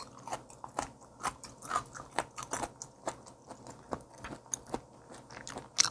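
Close-miked chewing of raw sea bream belly sashimi dipped in soy sauce: a string of short, irregular mouth clicks and smacks, the loudest near the end.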